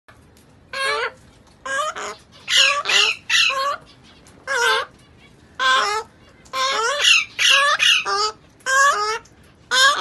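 Young African grey parrot chicks calling: a dozen or so short, wavering calls in irregular succession, sometimes two or three close together.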